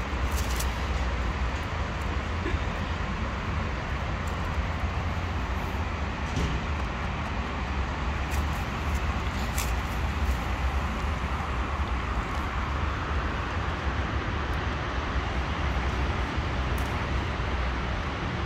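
Steady rumble of road traffic, with a few faint short clicks scattered through it.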